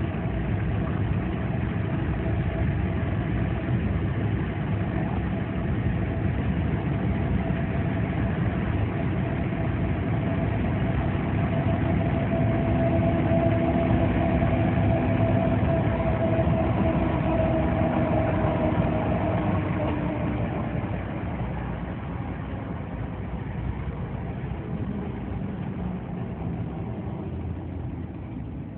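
Truck driving on the road: steady engine and tyre noise with a held whine that grows louder towards the middle and eases off after about twenty seconds.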